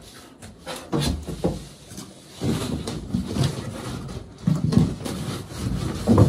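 Large cardboard box being handled: flaps rustling and scraping in irregular spells, with a couple of sharp knocks about a second in.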